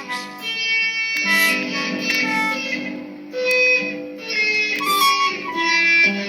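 Instrumental music with no singing: a melody of held notes over a sustained chord, changing pitch every half second or so.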